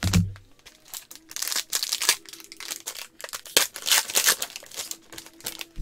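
Trading card pack's foil wrapper being torn open and crinkled by gloved hands: irregular crackling rustles, with a low thump right at the start.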